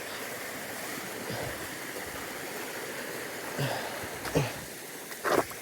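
River water flowing in a steady, even rush. A few short, sharper sounds come in near the end.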